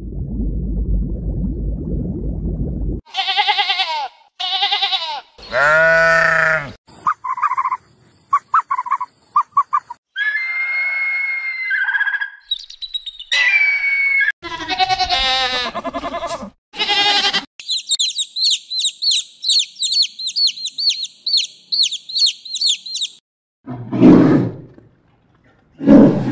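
A run of different animal calls cut one after another: a low rough rumble at the start, several pitched calls and short repeated chirps, a long rapid high-pitched chirping trill, and two short low rough calls near the end.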